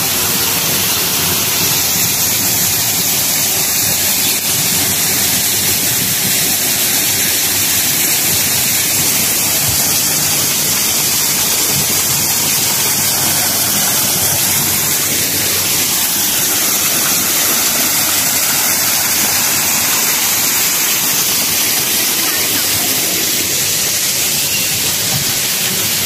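Steady, loud rushing noise with no breaks, strongest in the high pitches.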